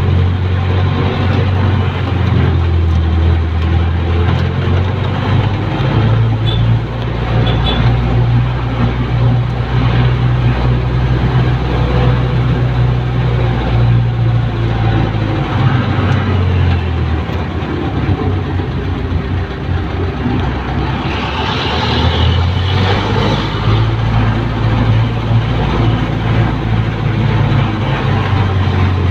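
Jeepney's diesel engine running, heard from on board, its low drone shifting in pitch a few times as the speed changes.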